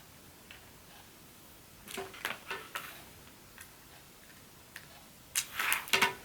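Small hard objects clicking on a work surface: a few light clicks about two seconds in, then a short burst of clicks and rattling near the end, as small phone-repair tools are picked up and handled.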